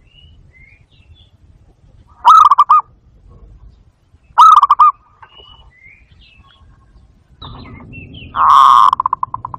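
Barred dove (bato-bato) giving three loud bursts of rapid staccato cooing, about two, four and a half and eight and a half seconds in. The last is longer and trails off in quick pulses. Faint high chirps from other small birds come between the coos, and a low rumble runs under the last call.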